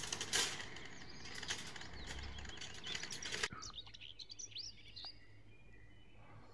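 Small birds chirping in short, quick calls in the evening, mostly around the middle, over faint street ambience. Rustling with a few dull thumps, from walking and moving the phone, fills the first half and stops suddenly.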